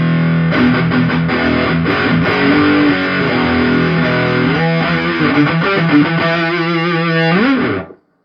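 Heavily distorted electric guitar through a fuzz pedal driven by an overdrive, played into a guitar amp: a held low chord, then riffing, ending with a slide down the neck and an abrupt stop about eight seconds in.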